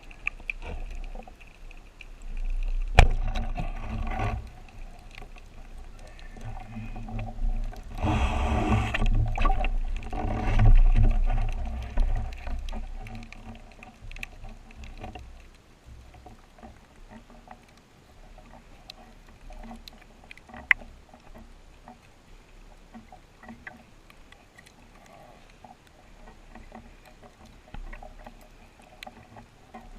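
Water sounds while spearfishing: noisy stretches of water movement and splashing, with a sharp knock about three seconds in. After the first half it settles to a quieter stretch with scattered faint clicks and crackles.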